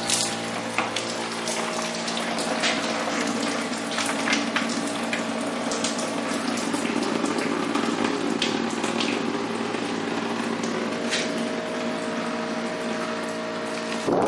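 Water running and spattering with scattered drips, over a steady mechanical hum made of several even tones.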